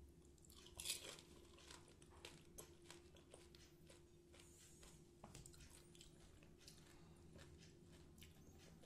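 Faint crisp crunches and clicks of phuchka being put together: a hollow fried puri crackling in the fingers and a spoon clinking in a ceramic bowl of tamarind water, with a sharper crunch about a second in.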